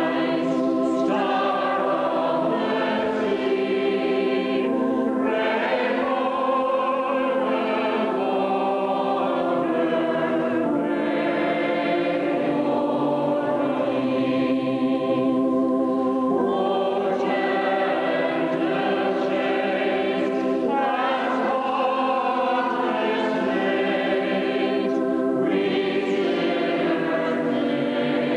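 Choir singing a hymn, many voices holding long notes in phrases that break off briefly every few seconds.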